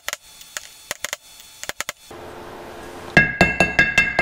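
Hammer striking a socket used as a driver to press a new pilot bearing into the centre of a flywheel, metal on metal. A few light scattered taps at first, then about three seconds in a quick run of harder ringing blows, about five a second.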